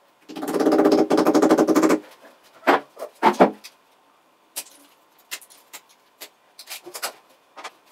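A loud buzzing burst for about the first two seconds, then a few knocks as plastic wall plugs are tapped into holes drilled in ceramic tile. After that, a utility knife blade makes many short, sharp clicks and scrapes as it trims the plugs flush with the tile.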